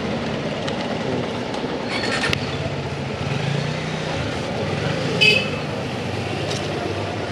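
A train passing: a steady rumble, with a short high squeal about five seconds in.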